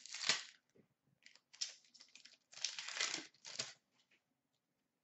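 Foil wrapper of a 2015-16 Fleer Showcase hockey card pack being torn open and crinkled, with the cards rustling as they are pulled out, in several short bursts.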